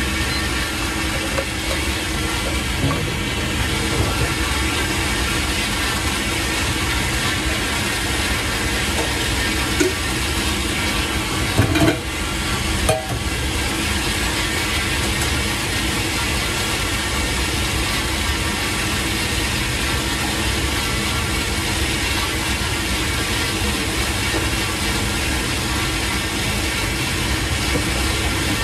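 Countertop blender motor running steadily, pureeing a ginger-and-garlic sauce, with a brief clatter about twelve seconds in.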